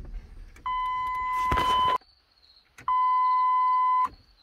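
Pickup truck's electronic warning tone: a steady high beep sounding twice, each a little over a second long.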